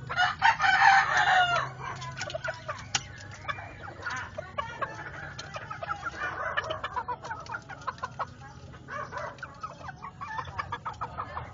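Polish Frizzle chickens: a rooster crows once, loudly, for about a second and a half at the start, then the birds keep up short, scattered clucking calls.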